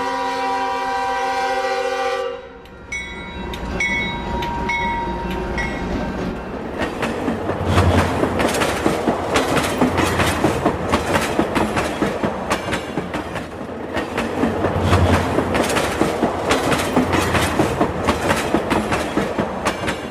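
Rail King battery-powered toy train set: an electronic train-horn sound effect held for about two seconds, then a few short beeps. From about six seconds in, the train runs along its plastic track with fast, dense clicking.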